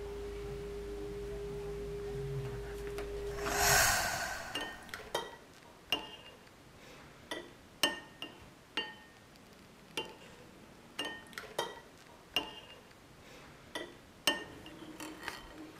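Spoon clinking against a soup bowl, about a dozen short sharp clinks with brief ringing at uneven intervals, as someone eats. Before them, a steady low tone and hum ends in a short rush of noise about four seconds in.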